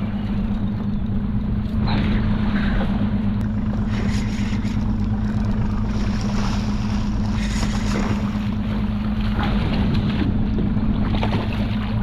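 Boat engine idling with a steady low hum, under a haze of wind and water noise.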